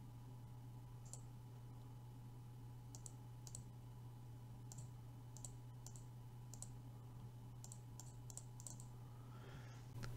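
Faint computer mouse button clicks, about a dozen at irregular intervals, over a steady low electrical hum.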